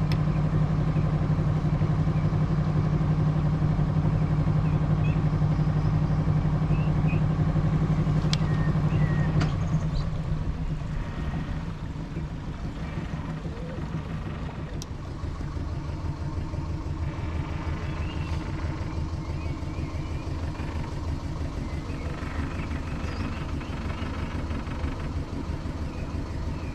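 A boat's engine running steadily under way; about nine and a half seconds in its note drops and it runs on more quietly, as if throttled back.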